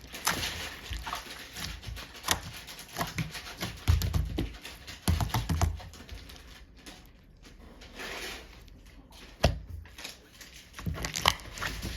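Stationery-store slime being squeezed and pressed by hand, giving irregular sticky clicks and pops with soft squishing in between; it goes quieter for a few seconds in the middle.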